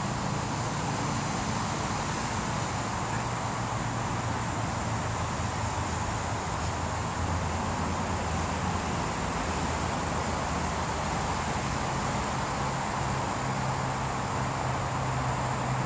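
Steady urban outdoor background noise: a constant low hum with an even hiss over it, and no distinct events.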